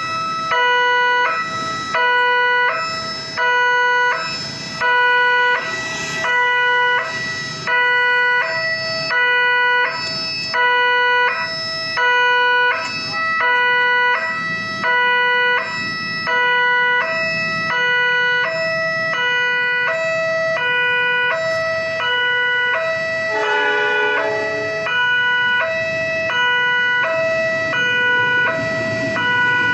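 Railway level-crossing warning alarm sounding: an electronic two-tone signal alternating steadily, about one cycle per second, the signal that a train is approaching the crossing.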